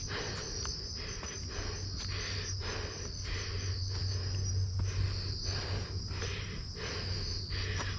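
Crickets or other night insects trilling steadily at a high pitch, with a regular rustle about twice a second from footsteps through leaf litter.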